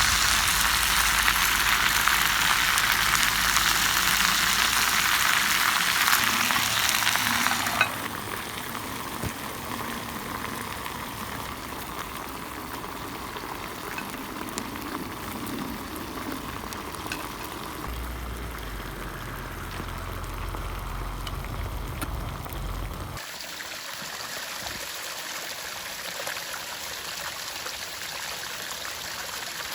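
Potatoes and cheese sizzling in a skillet over a campfire. The loud, even sizzle drops suddenly about eight seconds in to a quieter sizzle. About three-quarters of the way through it gives way abruptly to a different steady hiss.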